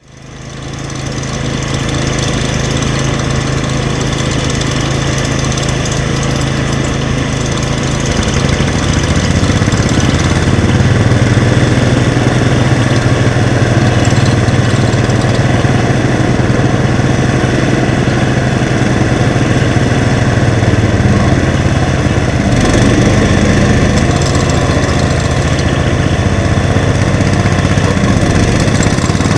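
Garden tractor engines running steadily, a low drone that grows louder and rougher about eight seconds in as the throttle or load comes up.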